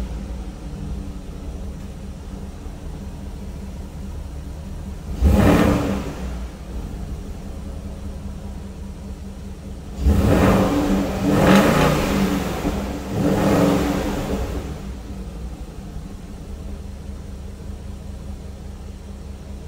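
Porsche Cayenne S 4.8-litre V8 running just after a cold start, heard at the exhaust. It idles steadily and is revved once about five seconds in, then three times in quick succession from about ten to fourteen seconds in, each rev dying back to idle.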